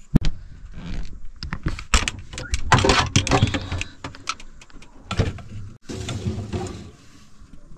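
Clatter and repeated knocks of a metal pot being put into a refrigerator, with the fridge door being handled; the busiest stretch comes a couple of seconds in.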